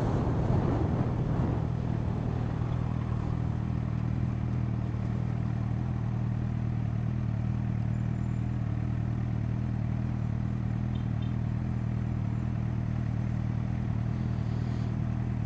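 Suzuki GSX-R600 inline-four engine heard from the rider's helmet, idling steadily, with wind rush over the first couple of seconds as the bike rolls to a stop.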